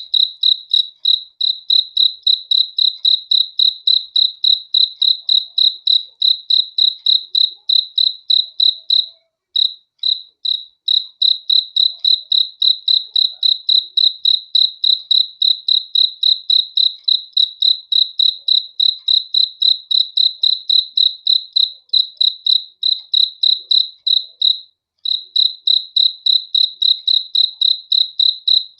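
A cricket chirping in a steady, even rhythm, about three high-pitched chirps a second on a single tone. The chirping breaks off briefly twice, about a third of the way in and again near the end.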